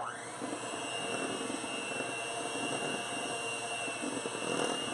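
Electric hand mixer switched on, whining up to speed, then running steadily, its beaters churning thick pound cake batter in a stainless steel bowl.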